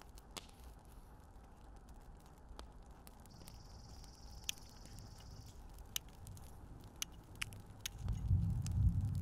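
Knife cutting raw meat from the bone: scattered light clicks and scrapes. A low rumble starts near the end and is the loudest sound.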